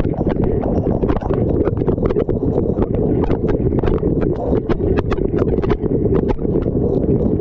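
Dishwasher wash cycle heard from inside the tub: water from the spray arms churning and splashing steadily, with many irregular sharp ticks of spray and droplets striking the camera's housing.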